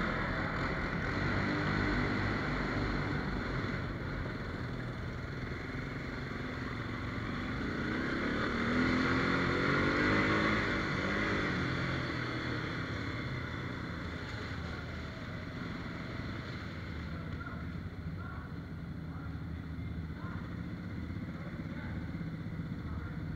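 Quad (ATV) engines running at trail speed inside a rock tunnel, a steady drone. About a third of the way in, one engine revs up, rising in pitch and getting louder for a few seconds, then settles back.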